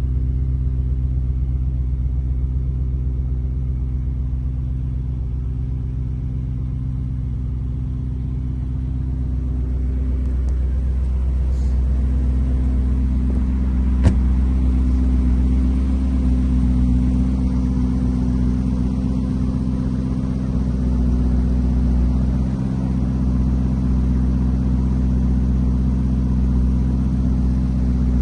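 Lamborghini Urus S twin-turbo V8 idling steadily, with one sharp knock about halfway through.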